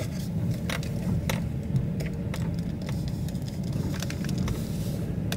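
Inside a Daihatsu Ayla 1.0X CVT driving slowly: the steady low hum of its three-cylinder engine and tyres on a block-paved road, with a few scattered light clicks and rattles from the cabin.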